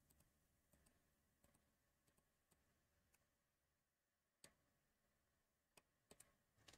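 Near silence with scattered faint computer mouse clicks; the clearest comes a little after four seconds, and a small cluster follows near the end.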